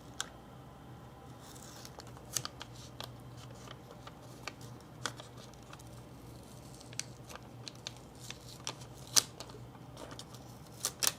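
Protective film inside a laptop being peeled off, giving quiet, scattered crackles and small ticks, with a few sharper ones near the end.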